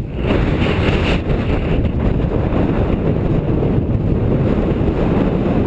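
Strong mountain wind buffeting the microphone: a loud, steady, fluttering rumble.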